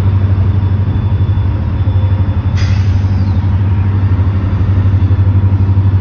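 Freight train diesel locomotive engines rumbling, steady and throbbing. About two and a half seconds in comes a sudden burst of air-brake hiss that fades within a second.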